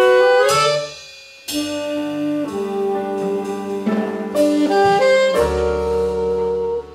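Jazz quintet playing: tenor and alto saxophones play the melody together over piano, double bass and drums. The band breaks off briefly about a second in, then comes back in, and near the end it holds a long sustained chord before stopping short again.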